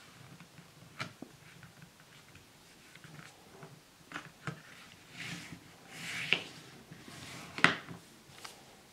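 Recycled greeting card being folded by hand and the crease pressed with a bone folder: light taps of card on the table, two brushing strokes of the folder along the fold midway, and a sharp tap near the end.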